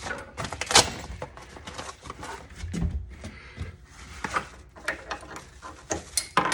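Handling noise from unpacking the spare tire kit: a string of clicks, knocks and rustles, the sharpest knock about a second in and another cluster near the end.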